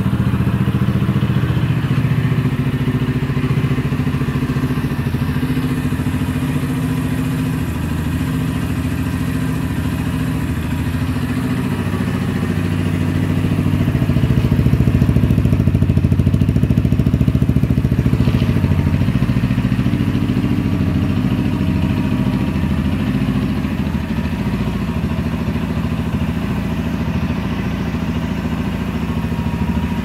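Zipp Scrambler 125's single-cylinder 125 cc engine idling steadily through its stock stainless exhaust, heard in a garage. The sound grows louder for a few seconds around the middle, then settles back to the same idle.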